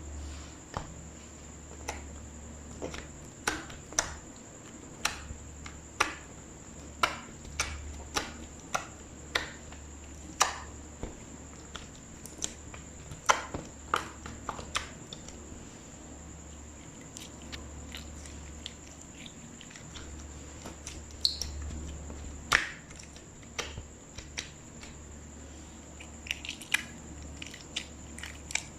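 Slime being squeezed and worked by hand, giving sharp sticky clicks and pops, about one a second for the first half and fewer later on.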